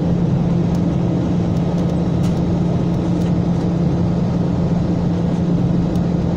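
Steady airliner cabin noise inside a Gol Boeing 737: the constant drone of the jet engines and airflow, with a strong low hum.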